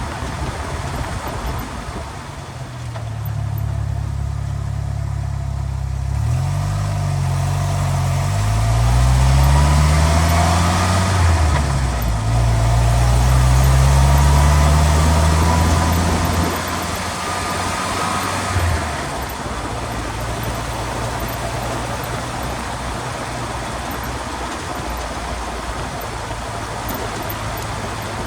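Drivetrain and road noise from underneath a moving vehicle. A low engine and driveline hum rises in pitch as it accelerates and drops back at a few gear shifts, then settles to a steady cruising hum. The suspected rear-differential mystery noise is not distinguishable in it.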